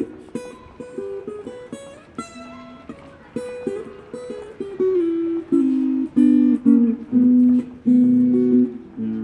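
Acoustic guitar fingerpicked note by note, softly at first, then louder with fuller chords from about three seconds in.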